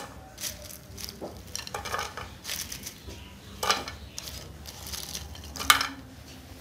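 Chopsticks and fingers clinking against a ceramic bowl and plate as crisp fried banana-blossom strips are lifted out and set down, with light scraping and rustling of the crispy pieces. The clinks come irregularly, the two loudest about two seconds apart in the second half.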